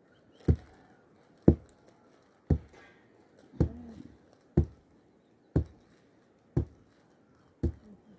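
Wooden mallet pounding a heap of grain spread on a mat, to beat the grain loose. Eight dull thuds in a steady rhythm of about one a second.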